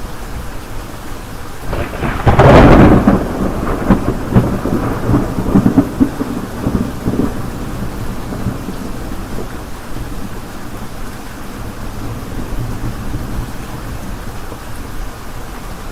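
Steady rain with a thunderclap about two and a half seconds in, a sharp crack followed by rumbling that fades over several seconds.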